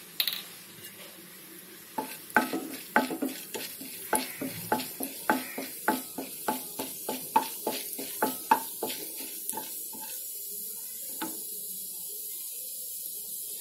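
Wooden spatula stirring urad dal in hot oil in a nonstick pan for tempering. It scrapes and taps the pan about two to three times a second over a faint steady sizzle. The stirring starts about two seconds in and stops about ten seconds in, leaving the sizzle.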